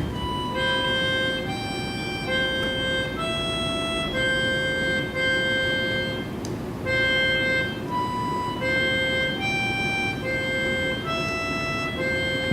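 Instrumental music: a slow melody of evenly held single notes, one after another, over a steady low background hum.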